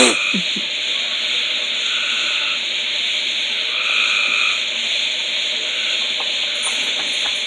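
Steady loud hiss, with a few faint ticks near the end.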